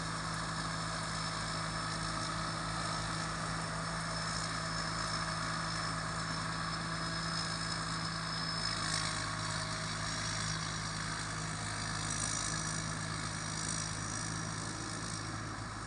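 Rice combine harvester running steadily in the field: a constant engine hum with a faint steady high whine above it.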